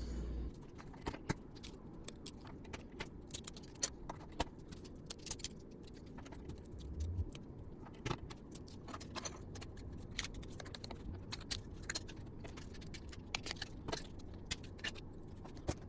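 Irregular small clicks, ticks and scrapes as printed support material is picked and snapped out from between the holes of a 3D-printed PLA part.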